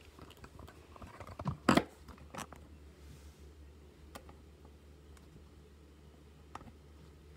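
Handling noise: a handful of knocks and taps as a phone is carried and set down on a desk, the loudest a single thump about two seconds in, over a low steady hum.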